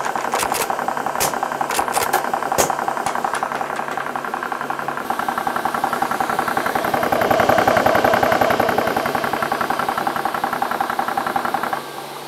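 Air Venturi Nomad II portable high-pressure PCP compressor running under load, pumping air into an air rifle's onboard bottle on its way to 3000 PSI, with a steady rapid mechanical chugging. A few sharp clicks come over the first three seconds, and just before the end the sound drops to a quieter steady hum.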